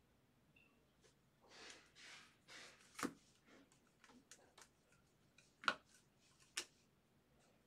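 Faint handling of trading cards: a few soft swishes of cards sliding against each other, then several short sharp clicks and taps.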